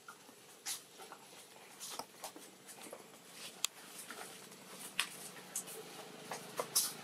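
A baby long-tailed macaque chewing and sucking on a ripe mango: irregular short clicks and smacks of its mouth on the fruit.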